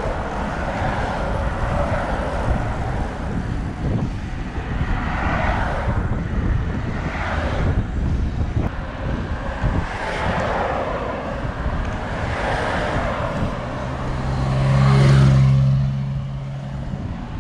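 Wind rushing over the microphone of a road bike at speed, with road and tyre noise underneath. Vehicles pass in several whooshes, and about fourteen seconds in a motor vehicle's engine hums loudly for about two seconds as it goes by.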